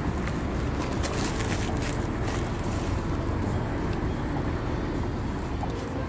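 Steady low rumble of street traffic, with a few faint crackles.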